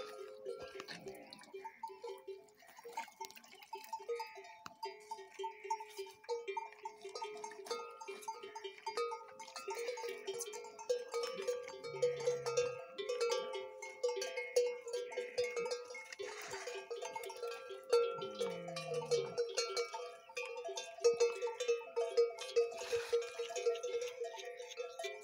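Metal bells clanking and chiming continuously with a quick, uneven rhythm, typical of bells hung on a camel herd's necks as the animals drink and jostle. Two short low camel calls come through, one about halfway and a falling one a little later.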